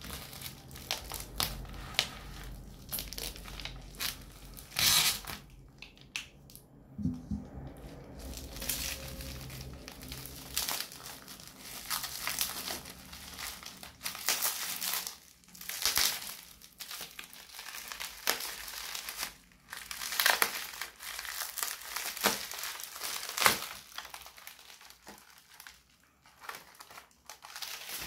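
Plastic bubble wrap crinkling and crackling in irregular handfuls as it is slit with a knife and pulled off a small cardboard box.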